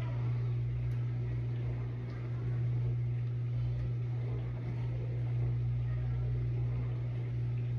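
Steady low hum of the vent fan in the over-the-range microwave above the stove.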